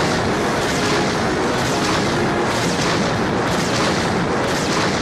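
Explosion sound effect from a pachinko machine's reach animation: a continuous rumbling blast with a crackling burst about once a second.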